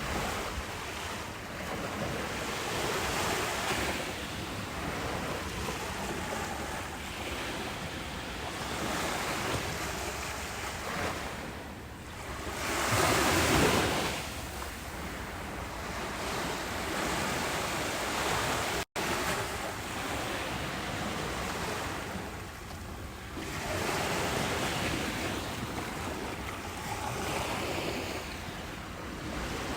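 Ocean surf breaking and washing up a beach: a continuous rushing wash that swells and ebbs slowly, with one louder wave about halfway through. A split-second dropout to silence comes about two-thirds of the way in.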